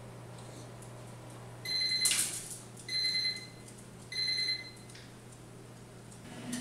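An electronic kitchen appliance beeps three times, about a second apart, each beep a short high steady tone. Near the end of the first beep a brief thump comes as the beagle jumps down from the counter to the floor.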